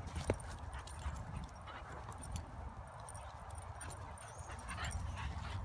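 A Staffordshire bull terrier–Ridgeback cross and a white Boxer puppy roughhousing on grass: scuffling and soft paw thuds, with one sharp knock near the start.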